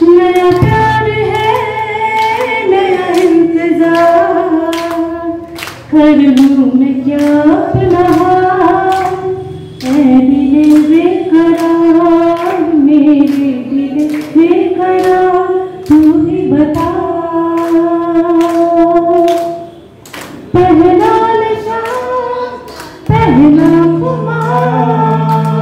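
A song: a high voice singing a melody in phrases over regular percussion beats, with a low held note underneath.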